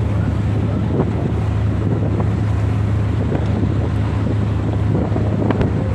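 Steady low drone of a ship's engine, with wind rushing over the microphone.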